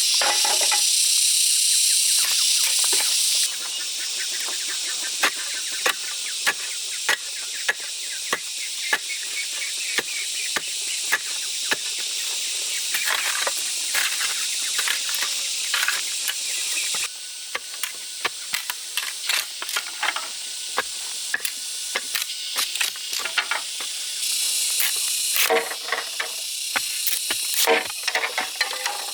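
A steady, high-pitched insect chorus that drops and rises in loudness abruptly a few times, with frequent sharp knocks and clicks throughout.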